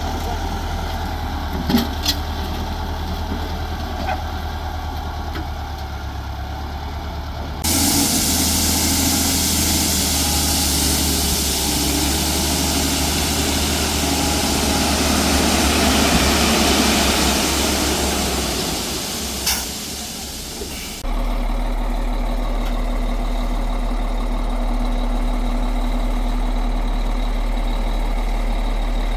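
Heavy engine idling steadily, with a couple of sharp knocks near the start. For a long stretch in the middle, a loud rushing noise covers the engine, and the sound changes abruptly as it begins and ends.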